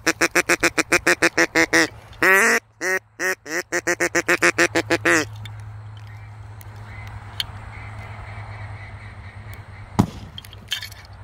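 Duck call blown in a fast run of quacks for about two seconds, then one longer note and a second run of quacks that trails off about five seconds in. A single sharp snap comes near the end.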